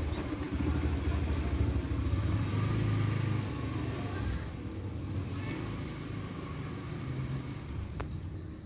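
A motor vehicle engine rumbles, loudest over the first three and a half seconds and then easing off. There is one sharp click near the end.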